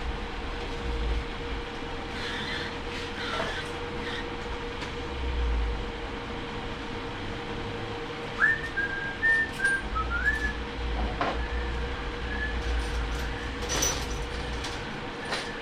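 Workshop sounds: a steady hum with a few low rumbles and sharp clicks, and a short run of whistled notes starting about eight seconds in.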